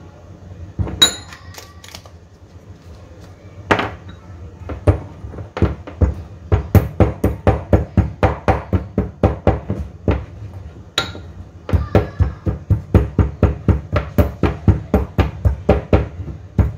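Pestle pounding whole spices in a mortar to grind them to powder: a few separate knocks and ringing clinks at first, then a fast steady run of thuds at about three strikes a second, broken once by a ringing clink of the pestle on the bowl.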